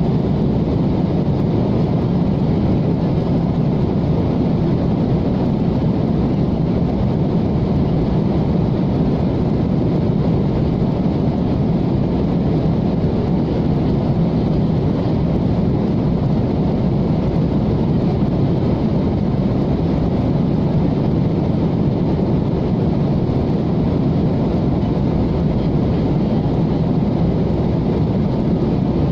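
Steady cabin noise of a Boeing 737 jet airliner in flight: the jet engines and the rush of air along the fuselage heard from inside the cabin, a constant low drone.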